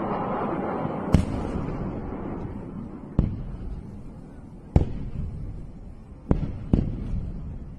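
Five sharp distant blasts, each trailing a short rolling echo, the last two close together, over a low rumble that slowly fades away: explosions during a rocket barrage.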